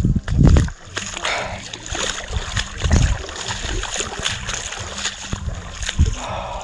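Shallow seawater splashing and lapping at the shore, with three low thumps on the microphone: just after the start, midway, and near the end.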